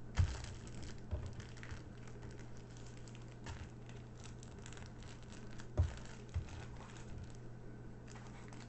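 Small plastic bags of diamond-painting drills and kit packaging rustling and crinkling as they are handled and put back, with scattered light clicks and a few soft knocks, the loudest just after the start and about six seconds in.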